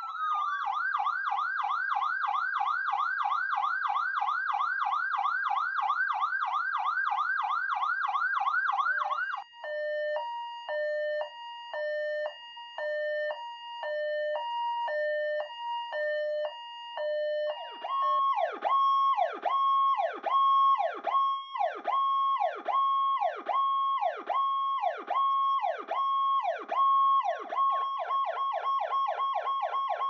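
Powercall DTX electronic emergency siren stepping through its tones: a fast yelp of rapid repeated sweeps, then about nine seconds in a hi-lo two-tone alternating between a low and a high note, then from about 18 seconds a whoop repeating about once a second, changing to a faster sweep near the end.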